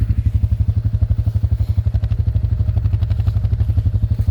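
Suzuki off-road machine's engine idling steadily, an even run of rapid low pulses, about a dozen a second.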